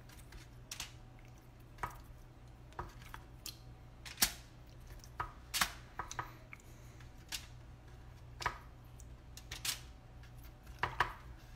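Pineapple rings laid one after another onto an aluminium-foil-lined baking pan: soft, irregular taps and foil crinkles, about one a second.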